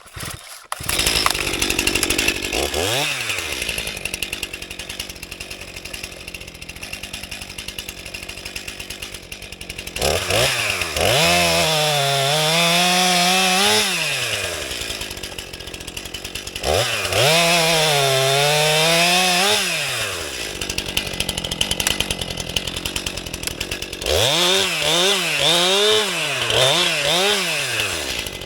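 Stihl MS 261 C-M two-stroke chainsaw starting off low with a quick rev, then opened up to full throttle three times, its pitch sagging and recovering as the chain bites into logs being bucked.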